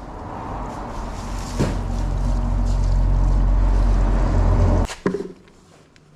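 A motor engine running close by, growing louder with a steady low hum, then cutting off abruptly about five seconds in.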